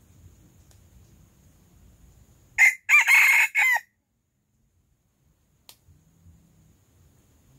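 A rooster crowing once: a short crow of about a second, broken into a few notes, starting about two and a half seconds in.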